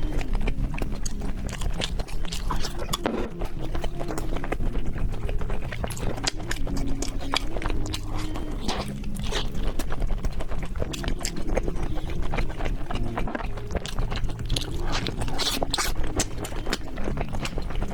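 Close-miked mouth eating sounds: steady chewing with many quick wet clicks and smacks.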